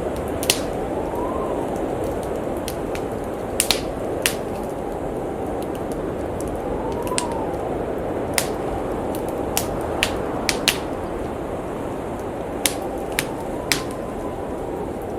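Wood fire crackling in a fireplace, with irregular sharp pops, about a dozen in all. Under it runs a steady rush of blizzard wind that three times swells into a soft howl, rising and falling in pitch.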